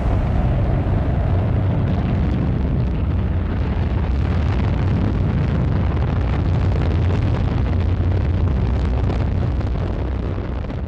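Ariane 5 rocket lifting off: the steady, deep noise of its engines and solid boosters at launch, easing off near the end.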